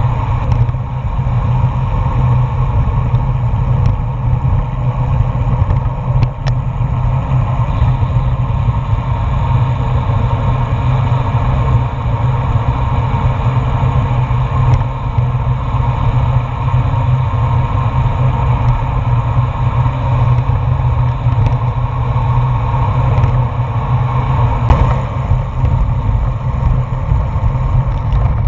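Wind buffeting an action camera's microphone during a fast bicycle descent, a steady low rush, with the tyres' hum on the asphalt and a few faint ticks.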